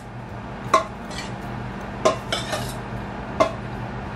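Stainless-steel pot clinking with metal-on-metal knocks as cooked pasta is dished out of it onto a plate: five or six sharp ringing clinks at uneven intervals, over a steady low hum.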